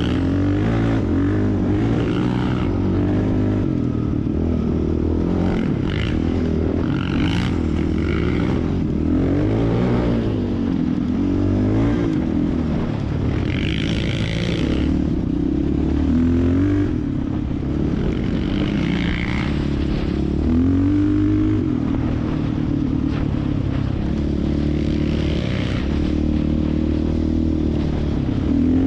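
Yamaha Raptor 660 ATV's single-cylinder four-stroke engine running under way on a dirt trail, its pitch rising and falling again and again as the rider works the throttle and shifts. Scattered bouts of hiss and rattle from the tyres and trail come and go over it.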